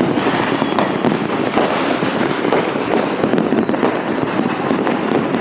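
Dense, continuous crackling and popping from many fireworks and firecrackers going off at once, with a brief falling whistle about three seconds in.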